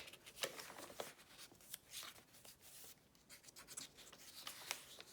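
Pages of a handmade journal being turned and handled: faint rustling and crackling of card, handmade petal-and-seed paper and old book pages, with a few soft taps.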